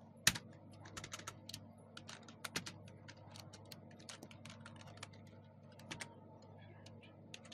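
Typing on a computer keyboard: irregular keystrokes with uneven gaps, one key struck clearly harder shortly after the start.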